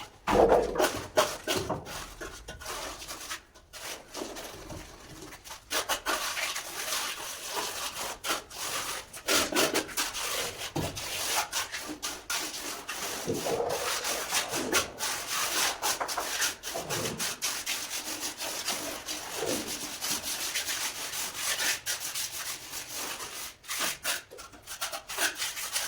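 Repeated rubbing and scraping strokes of a mason's hand float or trowel working a cement surface.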